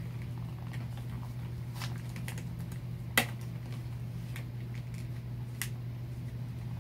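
Small plastic toy pieces and a plastic capsule being handled and fiddled with: light scattered clicks and taps, with one sharp, louder click about three seconds in. A steady low hum runs underneath.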